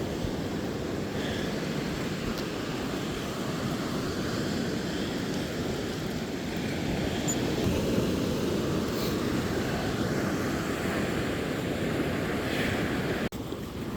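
Steady rushing of surf and wind at a rocky shoreline, with no distinct events, cutting off abruptly near the end.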